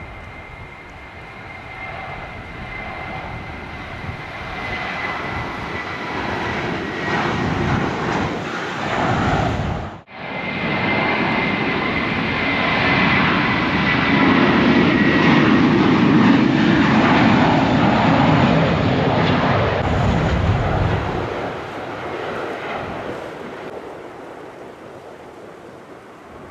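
Airbus A320-232's twin IAE V2500 turbofan jet engines running at high power, a whine over a rushing roar. The sound builds, breaks off abruptly about a third of the way in, then swells to a loud, deep rumble past the middle and fades away near the end.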